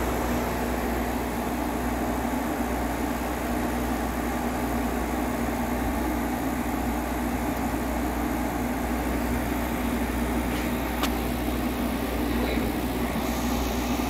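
Hisense 8000 BTU portable air conditioner running steadily, its fan blowing over a constant low compressor hum. The compressor is running again on a newly replaced capacitor, a sign the unit is cooling.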